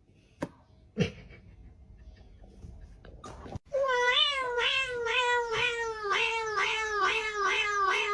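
A cat meowing in a long unbroken run, its pitch rising and falling about twice a second and slowly sinking. The run starts about four seconds in and cuts off suddenly near the end. Before it, two faint knocks.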